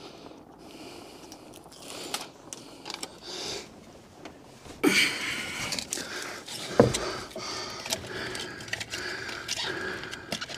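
Hands working at a copper refrigerant lineset and its insulation. Fairly quiet at first, then irregular rustling, scraping and small knocks from about halfway, with one heavier thump a little later.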